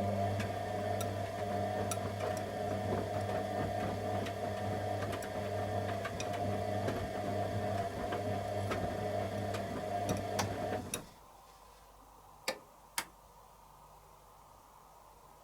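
Candy Aquamatic 100F washing machine's motor turning the drum during the heat phase of a wash: a steady hum with light ticks, which stops about eleven seconds in. Two sharp clicks follow about a second and a half later.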